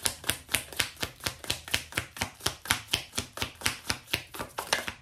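Tarot cards being shuffled: a steady, rapid run of crisp card clicks, about seven a second.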